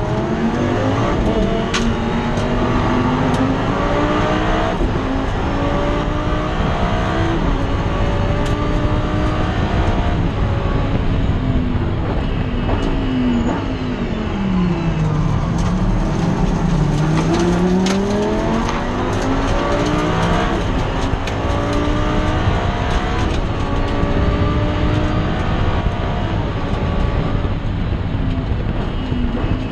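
Race car engine heard from inside the cockpit, accelerating hard through the gears: the revs climb again and again, dropping back at each upshift. Around the middle the revs fall away for a slow corner, then climb again as it pulls out.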